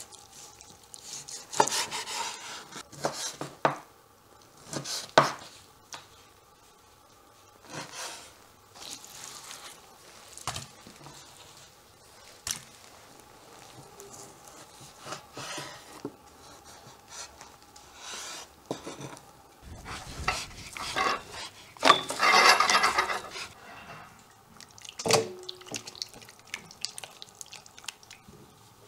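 Kitchen knife cutting raw beef heart and offal on a wooden cutting board: irregular knocks of the blade on the board and rustling of gloved hands, with some clatter of steel bowls. The loudest is a longer stretch of scraping and rustling about three-quarters of the way through.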